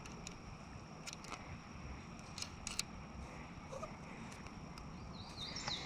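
Scattered sharp clicks and ticks of a fly rod and line being handled, with a short high chirp near the end.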